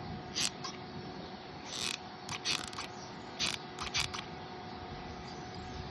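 Hot glue gun's trigger being squeezed over and over to push glue out, giving several sharp clicks spread over about four seconds.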